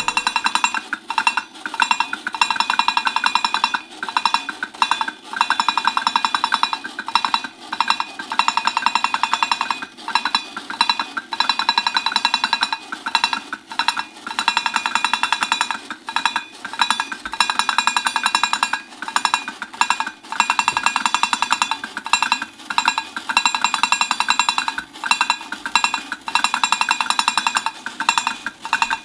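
Battery-operated Bongo Monkey toy beating its metal bongo drums in a rapid, clattering drumroll with a tinny ring, broken by brief pauses about every second.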